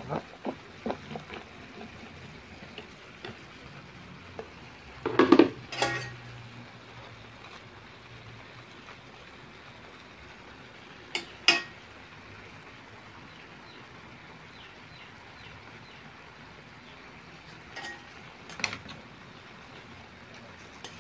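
Metal spatula clattering and scraping against a metal pan while chopped pechay is stirred into chicken. There are a few short bouts of clatter, the loudest about five seconds in, then others around eleven and eighteen seconds in, with light taps at the start.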